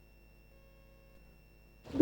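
Near silence with a faint steady hum. Just before the end, a loud pitched call with a falling pitch suddenly begins.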